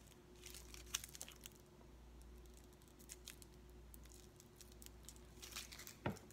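Faint crinkling of the clear plastic wrap around a bath bomb as it is handled, in scattered short rustles, with a soft thump near the end.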